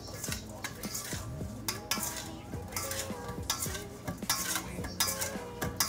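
Metal spoon and fork stirring broccoli in a stainless steel bowl, with repeated clinks and scrapes of the utensils against the bowl.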